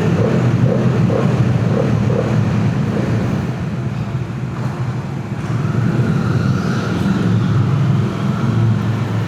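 Motorcycle engine running steadily after a cold-start warm-up, its level dipping briefly a few seconds in and then picking up again as the bike moves off.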